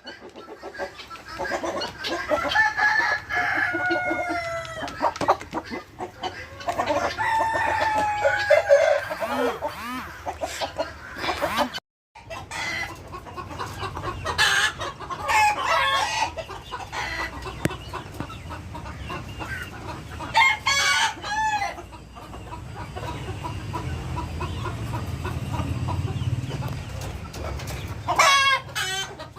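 Aseel roosters crowing several times at intervals, with chickens clucking between the crows.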